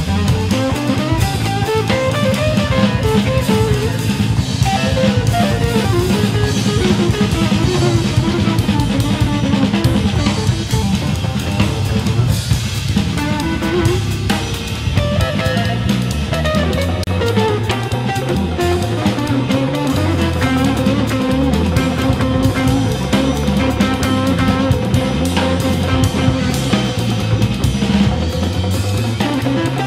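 Band music: a drum kit keeps a beat under bass and guitar, with a long held note in the second half.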